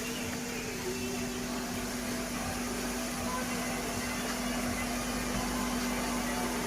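Steady mechanical hum with a constant low tone over an even hiss, unchanging throughout.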